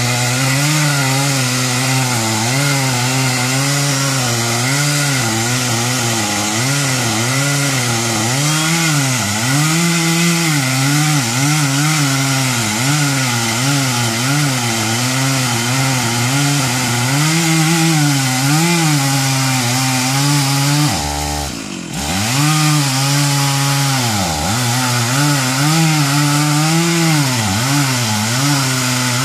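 Two-stroke chainsaw running and cutting through oak, its engine pitch rising and falling as it bogs under load and recovers. About three quarters of the way through it briefly drops off before revving back up.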